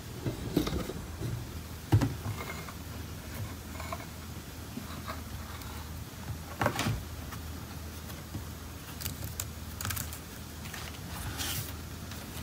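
Scattered light knocks, taps and rustles from hands handling a Surface Pro tablet and its keyboard cover, over a steady low hum. The loudest knock comes about two seconds in.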